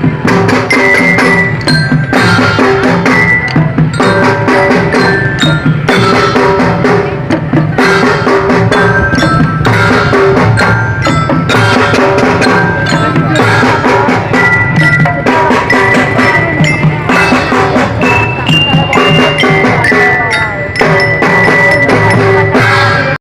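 Loud percussion music: drums with bell-like mallet percussion, in a dense, steady rhythm with repeated pitched notes.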